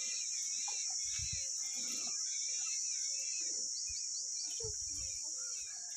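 Steady high-pitched insect drone with many small birds chirping and twittering over it, and a few dull low bumps about one and five seconds in.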